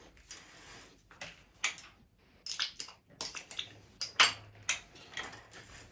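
Manual ratcheting pipe threader on steel pipe: irregular sharp metallic clicks and clinks, about a dozen spread unevenly, as the ratchet handle and die head are worked by hand.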